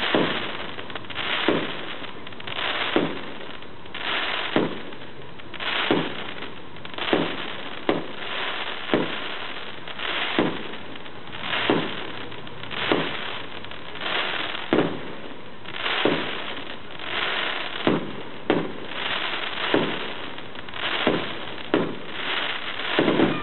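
Aerial fireworks shells bursting in a steady run, roughly one bang every second to second and a half, each followed by a short crackle as the glittering crackling-star effects break.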